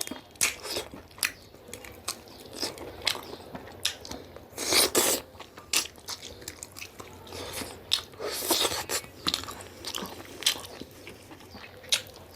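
Close-miked eating of rooster curry with millet dhido: steady chewing with wet mouth clicks, smacks and occasional crunches, and two longer, louder wet mouth noises about four and a half and eight and a half seconds in.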